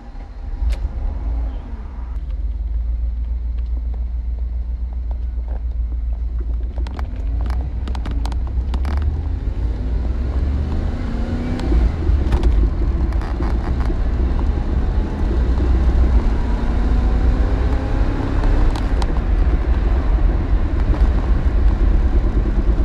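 Lancia Thema 8.32's Ferrari V8 pulling away and accelerating through the gears, heard from inside the cabin. Its pitch rises with each pull and drops at each shift, getting louder over time, over a heavy low road and wind rumble.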